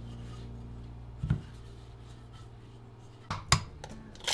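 A single low knock about a second in. Near the end come sharp taps of an egg being cracked against the rim of a ceramic bowl.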